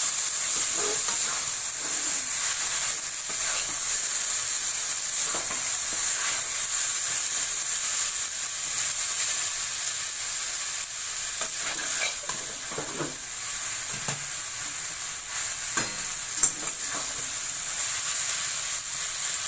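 Boiled noodles frying and sizzling in hot oil and masala in a kadhai while they are stirred and tossed, with a steady sizzle and scattered scrapes and knocks of the stirring utensil against the pan.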